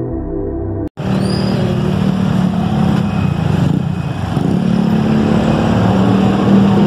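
Background music cuts off about a second in, giving way to street traffic noise with a steady engine drone underneath.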